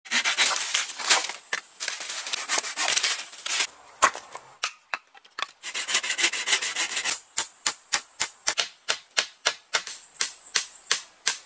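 Small folding hand saw cutting through a wooden pole in quick rasping strokes, two runs of sawing with a few knocks between. Then a fast series of sharp knocks, about four a second, for the last few seconds.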